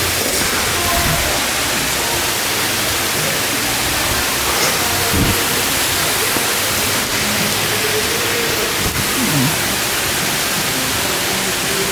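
Steady, loud rushing of falling water.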